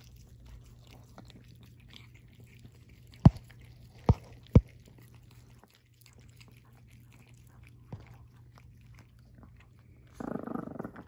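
Pomeranian puppy licking and lapping ice cream from a paper cup: a run of small wet smacks and clicks, with three sharp knocks a few seconds in and a short rough rustle near the end.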